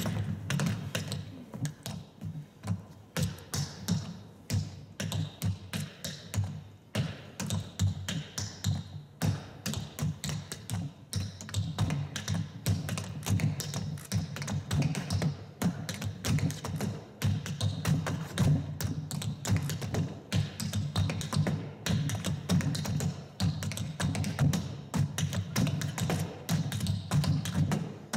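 Tap shoes on a wooden tap board: a hoofer dances a time step (shuffle, hop, stamp, slap, stamp) and his own variations on it. A fast, dense rhythm of sharp taps mixed with heavier stamps.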